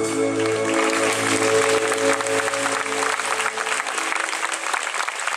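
A live orchestra's final held chord fades out over the first few seconds while the audience breaks into applause, which continues steadily after the music has died away.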